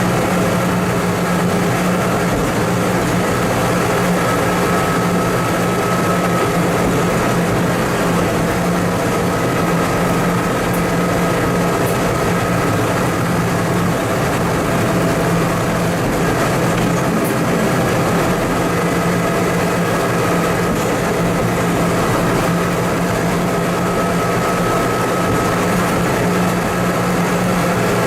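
Diesel engine of a TMC200 snow-removal motor car running with a steady drone, heard from its cab, with a fainter high whine that fades in and out.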